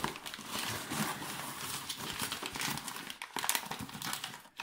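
Packing paper crinkling and rustling as it is handled, a dense run of crackles, while a wrapped figurine is taken from a parcel.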